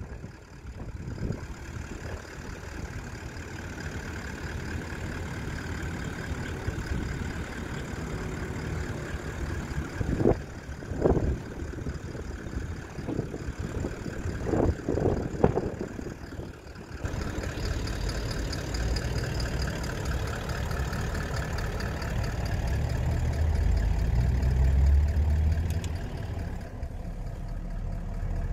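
A vehicle engine idling steadily, with a few brief louder bursts midway and a heavier low rumble in the second half.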